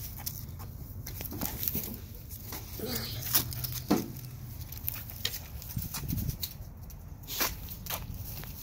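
Rustling and scattered clicks as dogs move about in dry straw right up against the phone, with dog fur brushing over the microphone.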